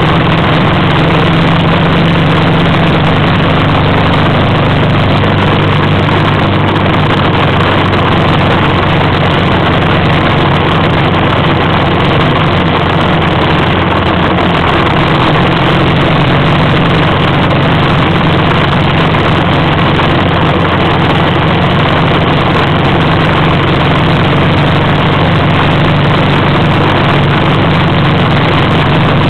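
Loud, steady engine drone and rushing noise of a vehicle being driven across desert sand.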